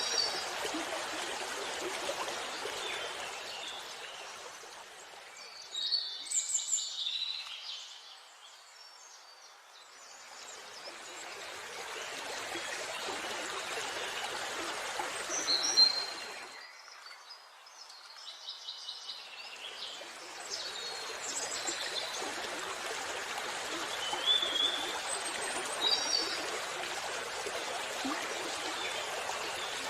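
Steady flowing water with songbirds chirping briefly now and then above it. The water sound fades well down twice and swells back each time.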